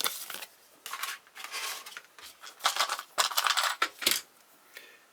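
Unboxing handling noise: irregular rustling of paper and packaging with light clicks of small items being lifted out of the box, stopping about four seconds in.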